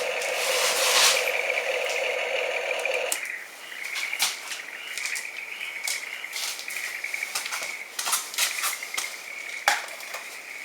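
Small electric motors of a model excavator whining steadily as it loads sand into a dump truck; one motor stops about three seconds in while a higher whine carries on, with scattered light clicks and clatter of sand and plastic.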